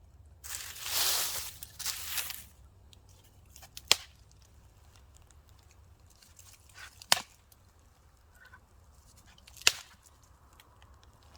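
Fire-making sounds: two brief rasping scrapes near the start, then three sharp snaps a few seconds apart.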